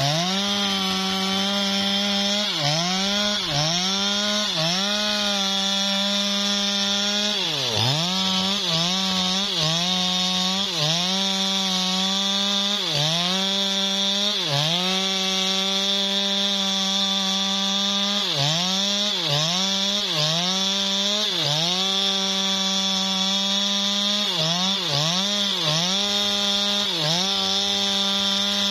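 Two-stroke Stihl chainsaw running at full throttle through a felling cut in a teak trunk. The engine pitch sags briefly again and again as the chain bites into the wood and then recovers, with a deeper sag about seven seconds in.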